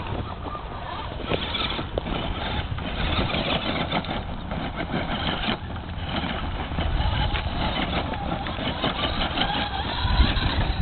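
Electric RC scale crawler truck driving up a slope of loose crushed asphalt, its tyres crunching and scattering the gravel over a continuous low rumble, with a louder knock just before the end.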